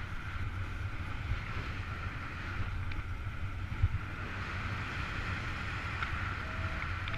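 Wind rushing over the camera microphone during a paraglider flight: a steady rush with low buffeting rumble. Near the end a short beep of one steady pitch starts.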